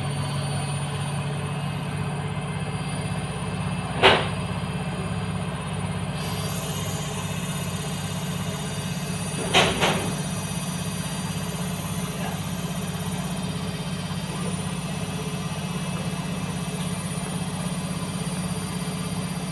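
Washing machine on its spin cycle, its drum turning with a steady hum and a regular low pulsing, wringing water out of bedding after the wash. Two brief knocks come about 4 and 10 seconds in.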